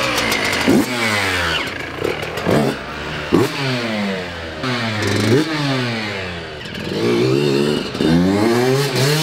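Yamaha YZ125 two-stroke dirt bike engine, freshly rebuilt, revving as the bike pulls away and rides off, its pitch rising and falling many times with several quick throttle blips.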